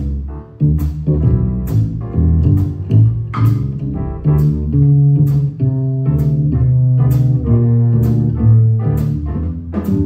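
Jazz piano trio playing: piano, plucked upright bass and a drum kit. The bass notes are prominent underneath, piano notes sit above them, and a cymbal is struck about once a second.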